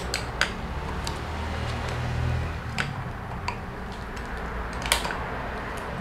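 Scattered light metal clicks of a hex key working the seatpost clamp bolt under a road-bike saddle, a few separate ticks with the loudest about five seconds in, over a steady low hum.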